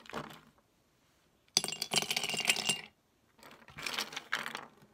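Plastic spray paint caps dropped by the handful into a glass mason jar, clattering against the glass and each other in two bursts, about a second and a half in and again near four seconds.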